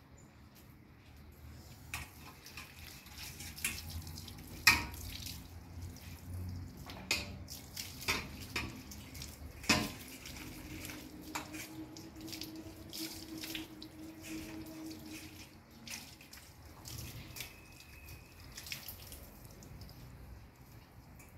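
Water running from a barrel's tap onto a large round metal tray as it is rinsed, with several sharp clanks of the metal tray, the loudest about five seconds in.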